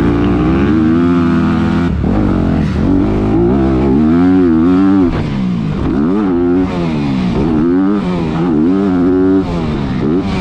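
Honda CRF250R dirt bike's four-stroke single-cylinder engine revving hard and falling back again and again under the rider's throttle, with short breaks in the engine note as the throttle is chopped or a gear is changed.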